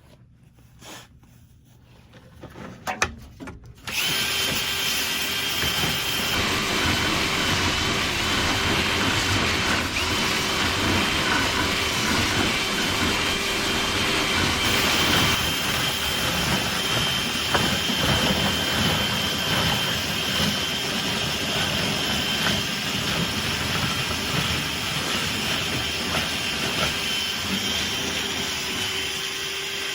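Power drill spinning a rotary brush through a dryer vent duct, starting suddenly about four seconds in and running steadily with a constant whine.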